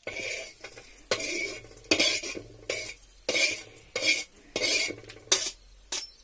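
Whole spices being swept by hand across a flat iron griddle (tava) and into a steel bowl: about nine rasping scrapes with a rattle of seeds on metal, roughly one every three-quarters of a second.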